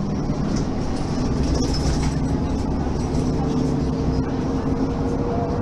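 Mercedes-Benz facelift city bus running, its diesel engine a steady drone with a steady higher tone joining about three seconds in.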